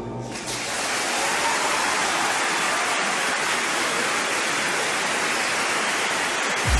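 A large audience applauding, an even, steady clatter of many hands, with a brief low thump near the end.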